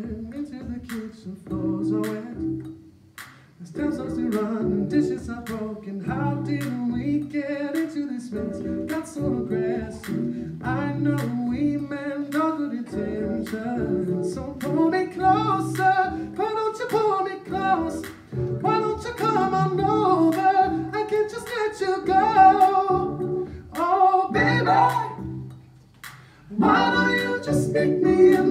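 A male voice singing a cappella into a microphone, layered with other vocal parts that run at the same time, as with a live loop station, over a steady clicking beat.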